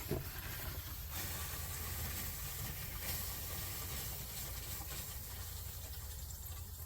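Steady hiss of water running through the household supply lines as the repaired pipe refills under pressure after the water is turned back on, with the new press fittings holding without a leak.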